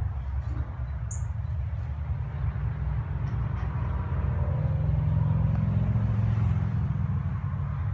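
Steady low rumble that swells around five to six seconds in and eases again, with one brief high chirp about a second in.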